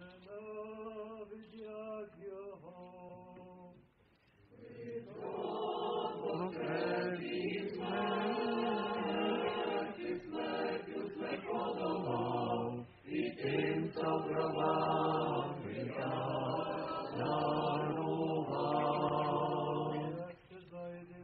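Eastern-rite liturgical chant: a single voice intones on sustained pitches, then from about four seconds in a fuller, louder sung response carries on with long held notes.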